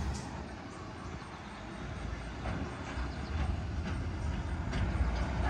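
Low, steady rumble of a distant freight train's diesel locomotives as it approaches, with no train yet in sight.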